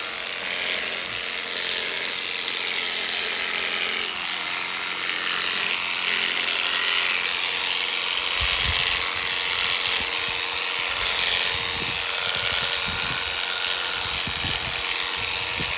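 Electric sheep shears buzzing steadily as they cut through a ewe's fleece. From about halfway, irregular low thumps join in.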